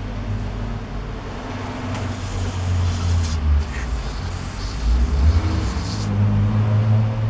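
Aerosol carburetor cleaner sprayed in two long hissing bursts, the second stopping about six seconds in, over a steady low rumble.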